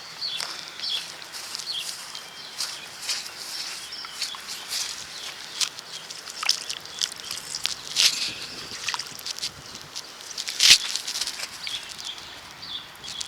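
Close handling noise as a freshly dug coin and dirt are handled: scattered rustles, scrapes and sharp clicks, with one louder click near the end.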